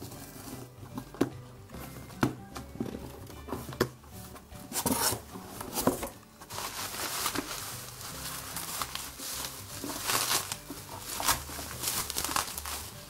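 A shipping package being torn open by hand: its wrapping crinkles and tears in irregular sharp crackles, over background music.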